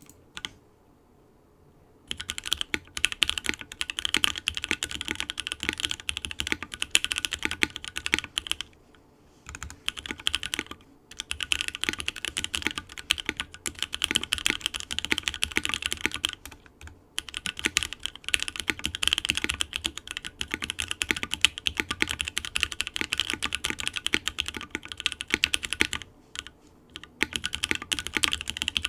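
Typing on a Portal65 mechanical keyboard with lubed NK Dry Black (JWK) linear switches, gummy O-ring mount, FR4 plate and GMK keycaps: a fast, continuous run of keystrokes starting about two seconds in, with a few brief pauses, the case adding its reverb to each stroke.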